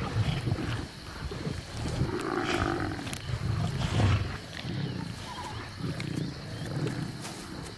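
Lions growling at a kill in repeated low rumbling stretches, loudest about four seconds in, as they squabble over too little food.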